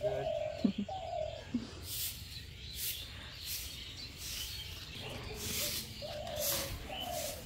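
Doves cooing: a couple of short, low coos near the start and a few more near the end, over faint outdoor background.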